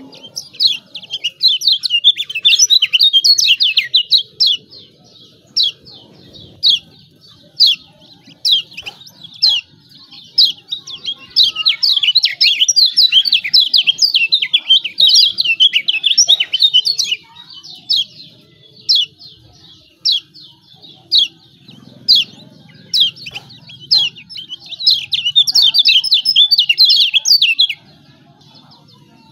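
Kecial kuning (Lombok white-eye) giving its 'ciak ciak' chattering calls: rapid runs of high chirps lasting several seconds, three times, with single chips in between.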